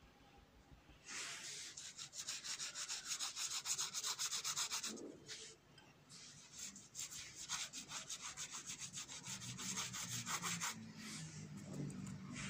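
Paintbrush scrubbed rapidly back and forth, a dry rubbing at about five strokes a second, in two runs with a short break about five seconds in.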